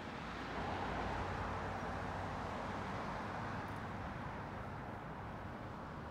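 Road traffic: the steady rush of a vehicle passing on the street, swelling about a second in and slowly fading.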